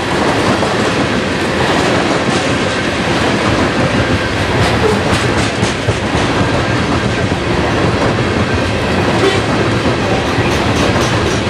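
Freight train hopper cars rolling past close by: a steady noise of steel wheels on rail, with bursts of clicks as the wheel sets cross rail joints.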